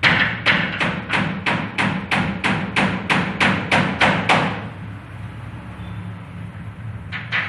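Rapid, evenly spaced knocks or taps, about three a second, over a steady low hum. The knocking stops a little past halfway, and a few more come near the end.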